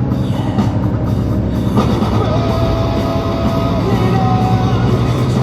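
Music playing over the steady low rumble of a truck's engine, with a few held notes from about two seconds in.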